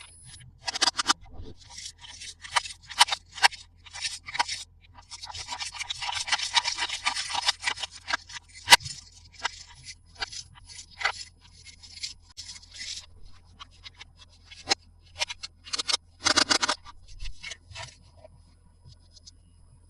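Hands handling plastic toy parts and packaging: scattered sharp clicks and scrapes, a few seconds of continuous rubbing or rustling near the middle, and one loud sharp click just after it.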